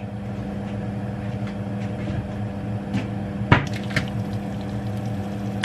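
Egg frying in a pan, a steady sizzle with faint crackles over a low hum, and a couple of sharp clicks about three and a half and four seconds in.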